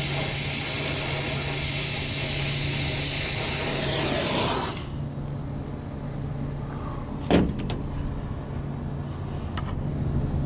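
Pressurised gas hissing loudly and steadily, with a whistle that falls in pitch as the flow is shut off about four and a half seconds in. After that a low steady hum remains, and there is one sharp knock a little past the middle.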